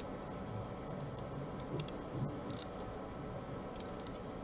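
Faint, scattered small clicks and ticks of a hex key working set screws into a 3D-printed plastic pump grip, over a steady faint hum.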